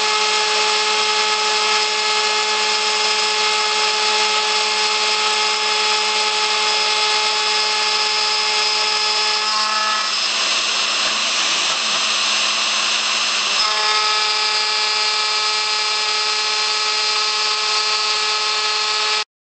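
ShopBot CNC router's spindle, at speed setting 3 of 6, driving a 1/8-inch carbide end mill through steel plate: a loud, steady whine over the noise of the cut. From about ten to fourteen seconds in, the steady whine drops out and the cutting turns harsher and noisier, then the whine returns. The sound cuts off abruptly near the end.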